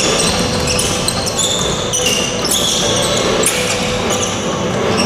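Basketball sneakers squeaking on a hardwood court in short high-pitched chirps, many times over, with a ball being dribbled and the steady din of a large gym.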